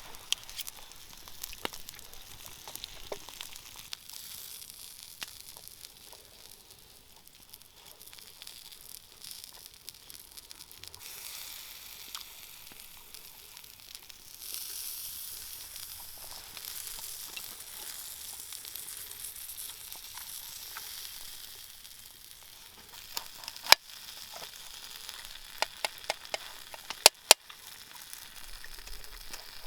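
Meat sizzling as it fries: a steady hiss that grows louder about halfway through, with several sharp clicks near the end.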